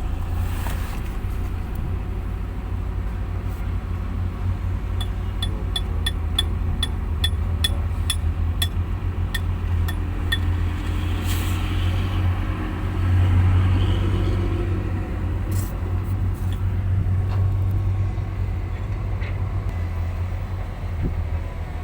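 Heavy diesel engine running steadily with a deep rumble, swelling briefly about two thirds of the way in. Over it, a little after the start, comes a run of about a dozen sharp ticks, roughly two a second.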